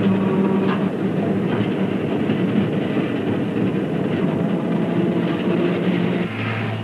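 Glasgow Corporation tram running along the rails, wheels clicking over the track under a steady motor hum.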